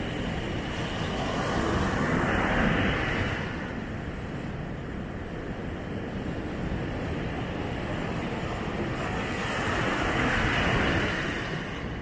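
Heavy surf breaking on a beach, with wind: a continuous rushing wash that swells louder twice, about two seconds in and again near the end, as waves break and run up the sand.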